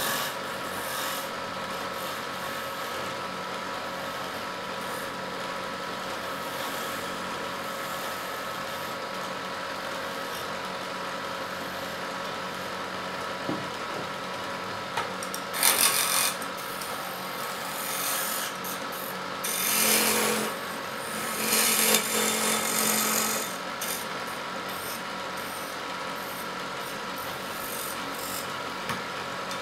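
Wood lathe running with a steady motor hum while a hand chisel shaves a spinning wooden spindle. There are three louder scraping cuts past the middle, the last two longer.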